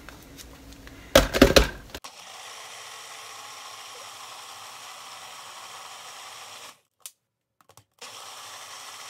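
Nutribullet blender blending frozen bananas and cacao powder into nice cream. A few knocks as the cup is set on the motor base, then a steady motor hum from about two seconds in that stops for about a second and starts again.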